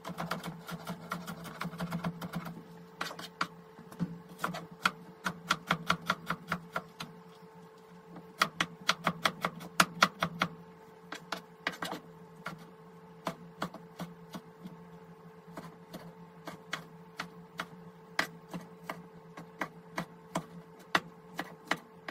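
Kitchen knife chopping vegetables on a wooden cutting board: sharp knocks in quick runs of several a second, broken by short pauses. A steady low hum runs underneath.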